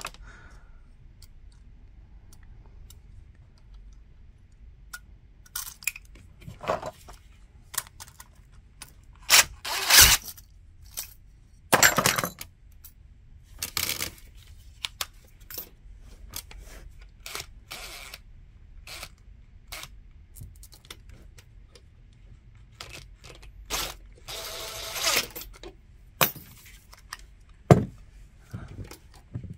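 Scattered metallic clicks and clinks, with a few longer scrapes, as a broken electrical receptacle and its wires are handled and pulled out of a metal wall box.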